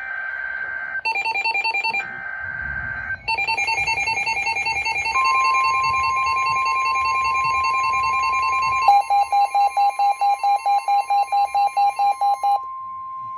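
NOAA Weather Radio warning alert: screechy SAME header data bursts with a repeating electronic beep alarm over them, then from about five seconds in the steady 1050 Hz warning tone, which carries on to the end. A faster pulsing beep joins about nine seconds in and stops shortly before the end.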